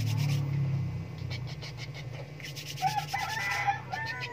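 Quick rhythmic rubbing of oily hands on skin as baby oil is spread on an infant. Near the end come two short, high, arching vocal calls.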